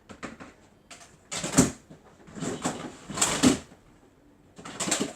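Four short bursts of rustling and bumping handling noise, a little over a second apart.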